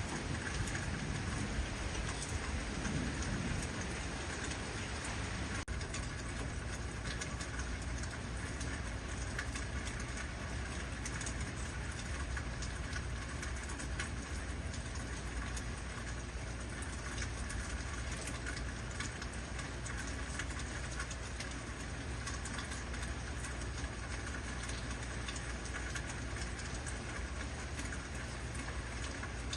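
Heavy rain falling steadily, a dense even hiss. A low rumble of thunder dies away in the first few seconds.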